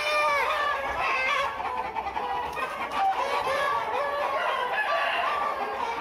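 A flock of chickens clucking and calling over one another, with roosters among them crowing.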